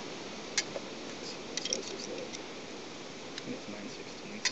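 Metal sockets clicking and clinking on a socket rail as they are handled, a few scattered clicks with a quick cluster about a third of the way in and more near the end.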